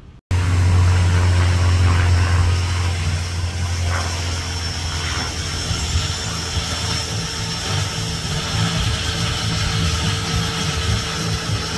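Single-engine high-wing light propeller aircraft flying overhead, its piston engine and propeller giving a loud, steady low drone. The sound cuts in abruptly just after the start.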